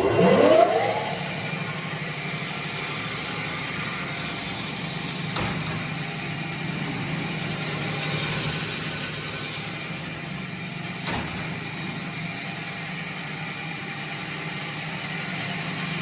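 BM 400 bandsaw switched on, its motor spinning up with a rising whine over the first second, then running steadily. Two faint ticks come about five and eleven seconds in.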